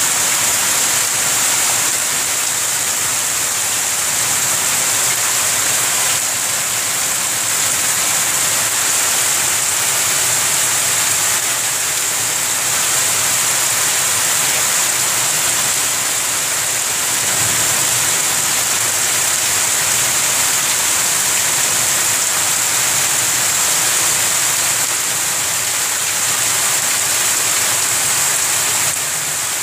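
Heavy rain pouring steadily onto trees, a wall and wet ground: a dense, even hiss that holds its level throughout.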